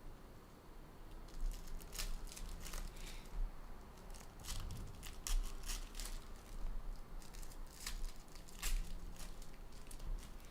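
Trading card pack wrappers crinkling and tearing as packs are opened and cards handled: a scattered run of short crinkles and snaps.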